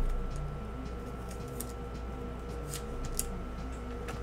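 Light scattered ticks and rustles of trading cards being handled, slid out of a foil pack wrapper and turned over, over a faint steady hum.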